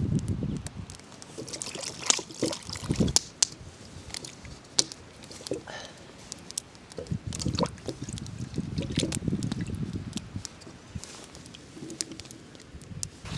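Water being poured and sloshed in camp cookware, with scattered clicks and knocks of pots and utensils being handled.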